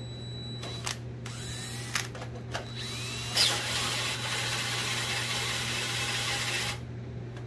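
Cordless 20-volt drill spinning a hole saw into the workpiece in a few short bursts, its motor whining up each time, then one steady cut of about four seconds that stops suddenly. The drill's battery is nearly flat.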